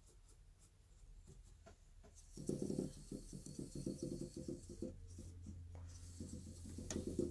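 Hammond A-100 upper-manual keys being pressed and released in quick runs under the hand, the key action giving only soft tapping and rubbing, with no clunk: the upstop and downstop felts have just been replaced. Faint scattered ticks at first, then busier and louder from about two and a half seconds in.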